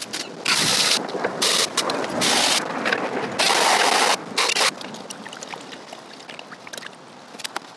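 Garden hose spray nozzle spraying water in short bursts onto gravel in a stack of sifting classifier sieves standing in a plastic tub. After about five seconds only a quieter hiss of water remains.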